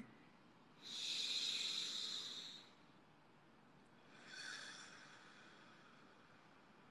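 Slow, deep breaths during a guided breathing exercise. A long breathy hiss starts about a second in and lasts about two seconds, then a shorter, softer breath follows about four seconds in.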